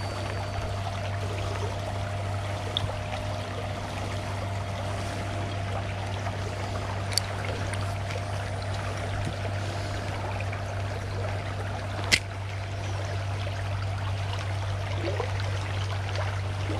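Steady rush of flowing river water, with two brief sharp clicks, about seven and twelve seconds in.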